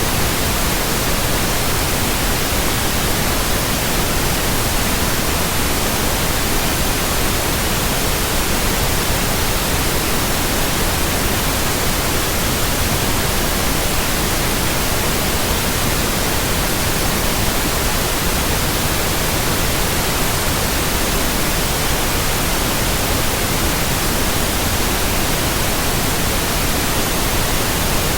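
Steady white noise: an even, unchanging hiss spread across all pitches.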